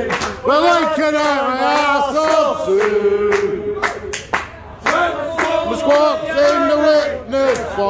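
Men's voices singing an unaccompanied pub song, with a note held for about a second near the middle and a few claps.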